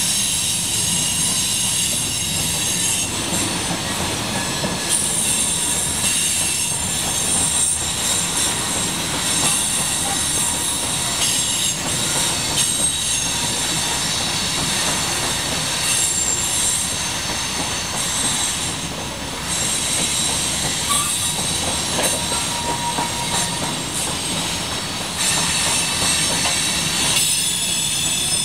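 Loaded coal hopper cars rolling past on steel wheels: a steady rumble with high-pitched wheel squeal throughout and occasional clacks over rail joints.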